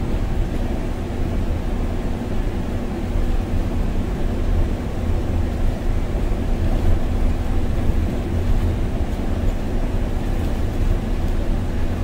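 Biogas-fuelled engine of a MAN Lion's City city bus running steadily under way, heard from the driver's seat as a deep rumble with a constant hum, mixed with tyre noise on the snow-covered road.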